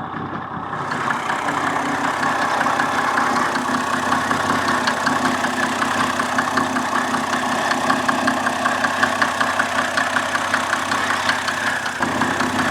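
Mercedes-Benz 350 SDL's 3.5-litre turbo-diesel straight-six idling with a steady, rapid diesel clatter. It gets louder about a second in.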